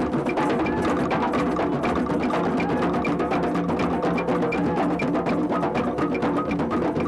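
Percussion music: drums and hand percussion playing a steady, fast rhythm, with a regular accent about twice a second.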